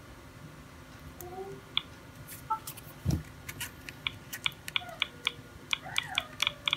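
Keypad of a Sony Ericsson K660 mobile phone being pressed: a run of small plastic key clicks, two or three a second, each with a short key beep, starting about halfway through as digits are typed to test the keys. A single low thump just before the presses begin.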